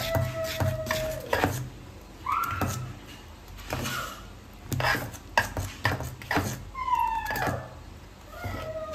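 A cat meowing several times, some calls rising and some falling in pitch. Between the calls a steel ladle clinks against an aluminium pot as thick batter is stirred.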